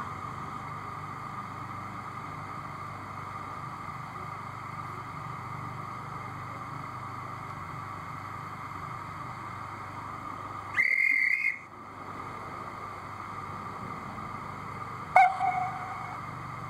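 Sound-fitted O gauge A1x Terrier model steam locomotive standing with a steady low hum, sounding its whistle once for just under a second about eleven seconds in. Near the end comes a click and a second, shorter whistle.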